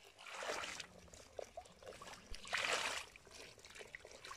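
Muddy water poured and splashed from a metal bowl, in two splashy bursts about two seconds apart.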